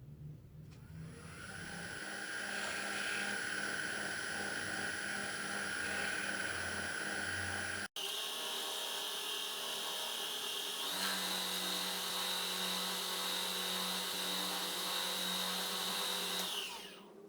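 Electric power-tool motor starting up and running with a steady high whine, winding down near the end. About eight seconds in, the sound breaks off for an instant and resumes at a different pitch.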